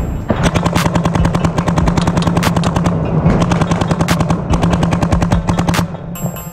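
Planet Eclipse LV1 electronic paintball marker firing fast strings of shots, many a second. The firing stops about six seconds in.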